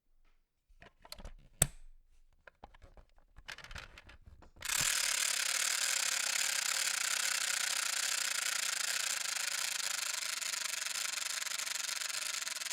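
Toy toaster: a few scattered clicks and rattles as it is handled, then, under five seconds in, a steady high hissing buzz starts abruptly and runs on: the toy's toasting sound.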